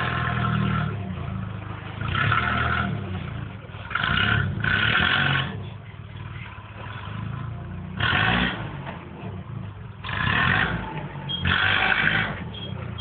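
Forklift engine running, revved in repeated short bursts every second or two as it drives and raises a car high on its forks.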